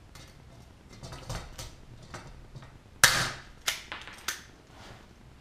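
Hand pop-rivet gun setting a blind rivet: a few light clicks as the handles are worked, then the mandrel snaps off with one sharp crack about three seconds in, followed by two lighter clicks.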